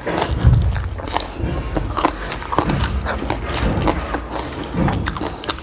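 Close-miked chewing: a run of small irregular wet clicks and smacks from a mouth eating chili and noodles.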